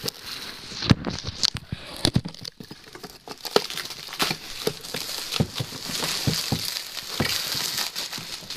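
Bubble wrap and packing material rustling and crinkling as a cardboard box is unpacked by hand, with many irregular small clicks and crackles.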